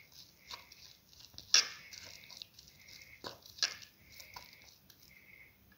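A spoon stirring thick chickpea flour batter in a bowl: irregular clicks, knocks and short scrapes of the spoon against the bowl. The loudest knock comes about one and a half seconds in.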